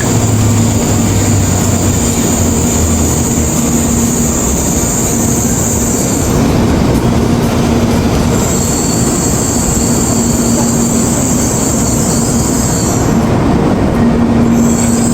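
Shinkansen bullet train pulling in along the platform: a loud, steady rolling rumble with a low hum and a high squeal. The squeal stops about six seconds in, comes back for several seconds, stops again, and returns near the end.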